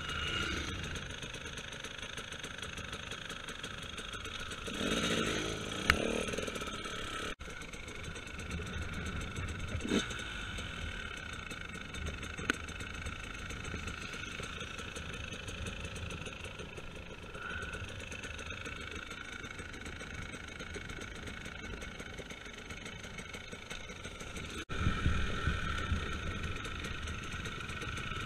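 Enduro motorcycle engine idling steadily, with a few sharp knocks. Near the end the engine sound gets louder and rougher as the bike rides on.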